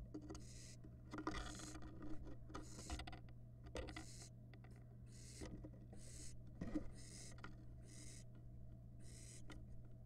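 Barn owl nestlings hissing, the raspy snore-like begging call, repeated about once a second. It is faint, over a steady low electrical hum from the nest-box camera.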